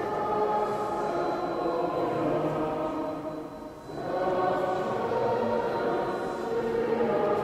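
Choral music: several voices singing long held notes, with a brief dip between phrases about four seconds in.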